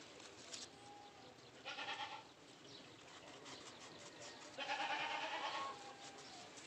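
Livestock bleating twice: a short bleat about two seconds in, then a longer one of over a second starting about four and a half seconds in.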